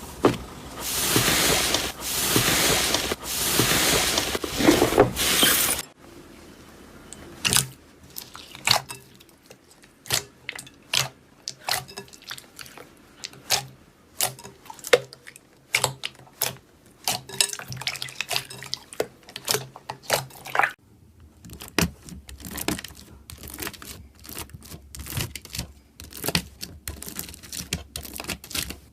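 Slime being played with: about six seconds of dense, loud squishing and crackling, then sparse wet clicks and pops, in separate clips.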